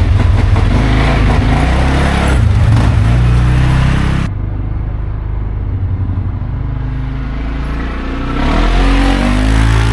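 CFMoto CForce 600 ATV's single-cylinder engine running as it is ridden, revving under throttle. About four seconds in the sound drops sharply and stays lower until it picks up again near the end.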